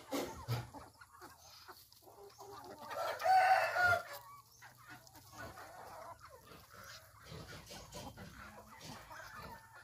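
A flock of native chickens clucking and pecking as they feed, with a rooster crowing once, loudly, about three seconds in.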